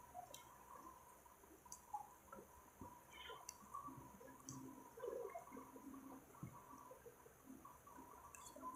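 Near silence with faint, scattered clicks and soft wet sounds of forks tossing sauced spaghetti on a plate.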